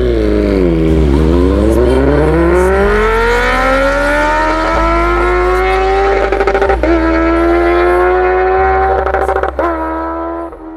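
Kawasaki H2's supercharged inline-four, fitted with an Austin Racing exhaust, accelerating hard away from the camera. Its pitch dips in the first second, then climbs steadily through the gears, with brief drops at shifts about seven seconds in and near the end, before fading out.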